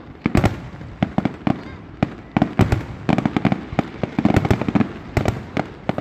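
Aerial fireworks shells bursting in quick, overlapping succession: a loud, irregular run of sharp bangs, several a second, each trailing off in an echo.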